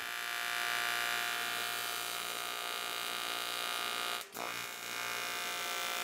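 TIG welding arc buzzing steadily as a lap joint is welded. There is a brief break about four seconds in before the buzz resumes.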